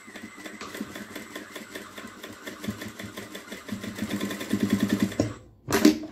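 Electric sewing machine running, stitching a seam in curtain fabric with a fast, even run of needle strokes that gets louder about four seconds in. The machine stops after about five seconds, and a short, loud noise follows just before the end.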